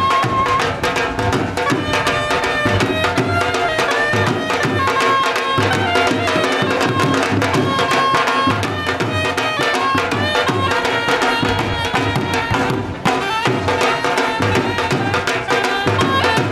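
Live dhol drums beating a fast bhangra rhythm, with a melody instrument playing long held notes over them. The drumming breaks off for an instant near the end, then carries on.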